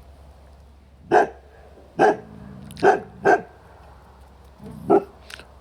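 A dog barking five times in short, sharp barks about a second apart, two of them close together in the middle.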